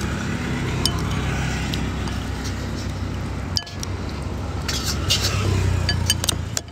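Metal spoon clinking against a ceramic soup bowl several times while stirring and scooping noodle soup, over a steady road-traffic rumble that grows louder near the end as a vehicle passes.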